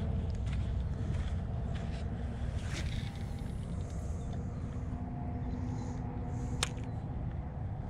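Wind rumbling on the microphone, with a faint steady hum underneath and one sharp click about six and a half seconds in.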